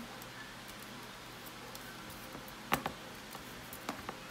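Small taps and light water splashes from hands and a plastic doll moving in a plastic baby bathtub, with one sharper tap a little under three seconds in and a couple of smaller ones near the end.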